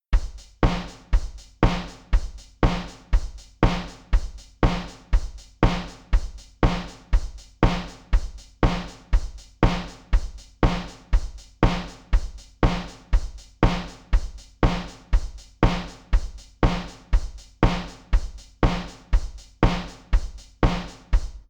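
A steady drum-kit beat: evenly spaced kick-and-snare hits with cymbal wash at just under two a second, each decaying quickly, repeating without change and cutting off suddenly at the end.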